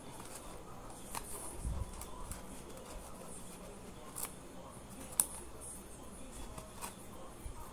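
Quiet handling noise of a corrugated paper box being held and pressed by hand: scattered soft clicks and rustles, a dull thump early on, and one sharper tick about five seconds in.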